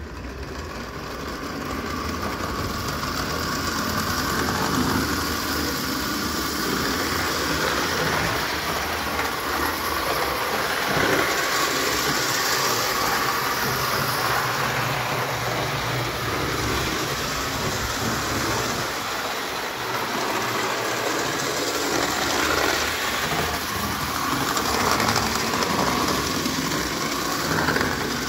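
Märklin gauge 0 'Storchenbein' tinplate locomotive and wagons running on metal track: a steady rattle of wheels rolling on the tinplate rails, growing louder over the first few seconds and then holding even.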